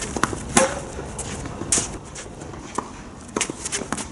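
Tennis balls being hit with a racket and bouncing on the court: a series of sharp knocks, the loudest about half a second in.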